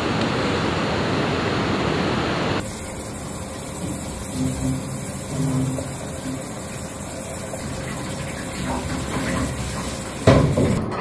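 A steady rushing noise that cuts off suddenly about two and a half seconds in. Then quieter water from a sink tap and pot washing, with a loud clatter near the end.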